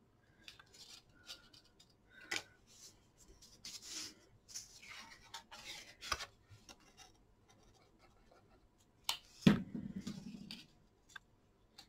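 Faint, intermittent rustling and rubbing of cardstock handled by hand, as the glued corners of a folded box lid are wiped and pressed, with a few light clicks and a louder rub near the end.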